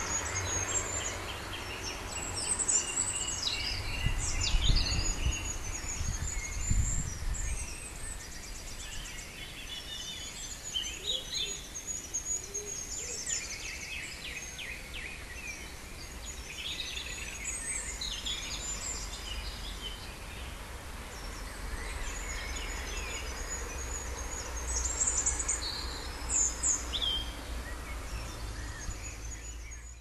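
Several woodland birds singing and calling at once in a spring dawn-chorus-like mix of short chirps, trills and whistles. A low rumble sits underneath and swells about four to seven seconds in.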